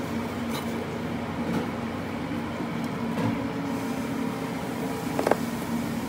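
Steady low mechanical hum with a few light knocks of a knife on a plastic cutting board, the sharpest about five seconds in.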